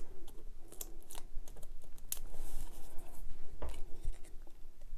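Irregular small clicks and taps with a short papery rustle about halfway through: foam adhesive pads being peeled from their backing and pressed onto card stock.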